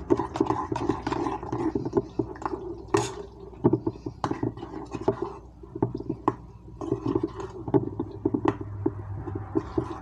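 Spoon stirring crumbled feta and pizza sauce in a small metal bowl: irregular taps and scrapes against the bowl's sides.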